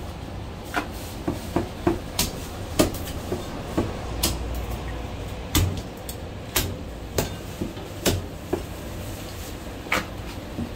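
Chinese cleaver chopping braised goose on a thick round wooden chopping block: sharp, uneven knocks, one or two a second.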